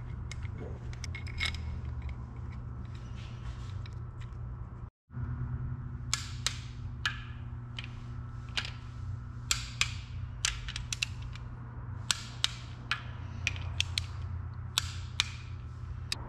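Hand tools on an engine's water-pump bolts: a ratchet clicking in short runs, with sharp metal clicks and clacks of the socket and extension, over a steady low hum. The clicking comes after a brief cut to silence about five seconds in.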